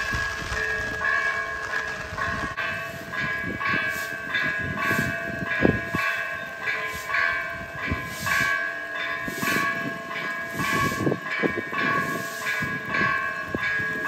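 Heavy rain pouring onto a flooded paved plaza, a steady hiss. A droning chord of several held tones sounds over it, and from a few seconds in a regular pulse of short strokes comes about twice a second.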